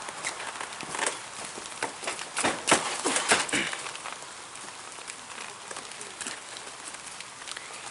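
A run of sharp slaps and thuds as two wrestlers grapple and strike each other on a wet backyard wrestling ring, loudest during the first half. After about four seconds the impacts stop and only a steady hiss of light rain remains.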